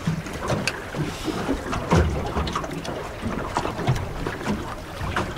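Wind buffeting the microphone and choppy water slapping against a small aluminium boat's hull, with irregular knocks as the boat bounces in the chop.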